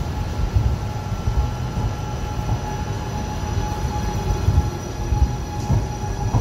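Electric passenger train running close past a platform: a continuous uneven rumble of wheels on rail, with a faint steady whine above it.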